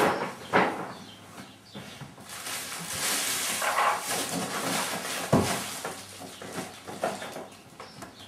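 An English bulldog breathing noisily, loudest for a few seconds in the middle, with a single thump about five seconds in.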